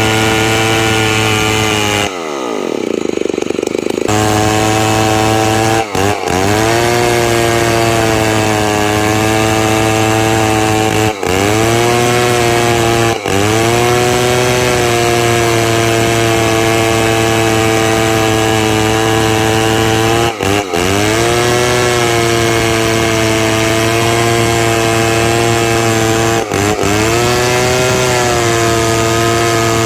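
Chainsaw engine running at high revs while ripping timber into beams; its pitch dips and climbs back up several times.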